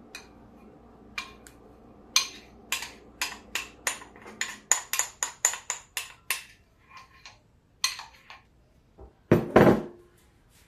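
A spatula clinking and scraping against a glass mixing bowl as the last frosting is scraped out, a quick run of about four or five clinks a second. Near the end comes one louder knock as the glass bowl is set down on the counter.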